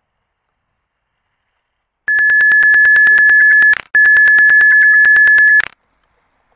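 Censor bleep: a loud, steady, high electronic beep tone dubbed over a swear word. It starts about two seconds in and comes as two long beeps with a brief break between them.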